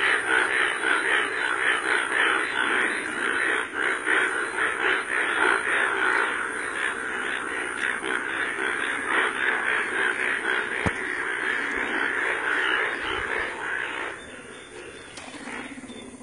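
A dense chorus of breeding Indian bullfrogs, the males turned bright yellow for the monsoon, calling all at once from floodwater. The chorus is loud and continuous, with many overlapping croaks, then drops much quieter near the end.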